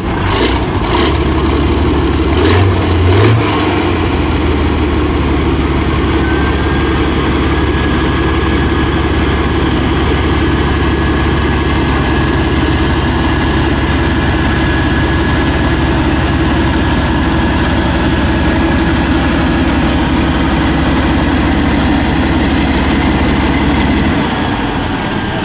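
T-72M4CZ tank's Perkins CV-12 V12 diesel starting: it catches with a few sharp bursts and a brief rev in the first few seconds, then idles steadily with a thin high whine. The low running sound drops away about a second before the end.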